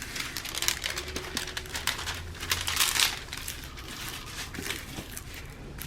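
Crinkling and rustling of a folded diamond painting canvas and its plastic packaging, handled and smoothed out by hand, with a busier patch of crackles in the first half.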